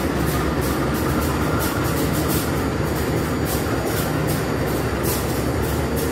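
Passenger train coaches rolling past on the track, with a steady low rumble and repeated sharp wheel clicks over the rails, several a second.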